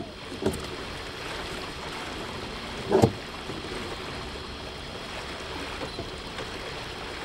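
Steady rushing noise of a boat under way on a river, water washing past the hull. There is a brief louder sound about three seconds in.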